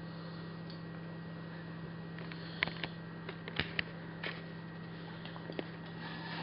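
Steady low machine hum, with a handful of small, sharp clicks and smacks clustered around the middle.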